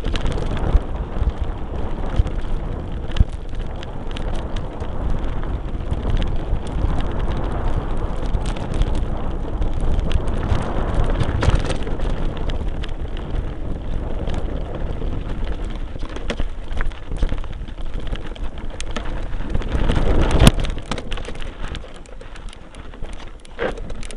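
Mountain bike rattling and clattering over a rough dirt and stony trail, heard through a front-mounted camera, a dense run of small knocks with tyres crunching on loose ground. One hard knock near the end is the loudest.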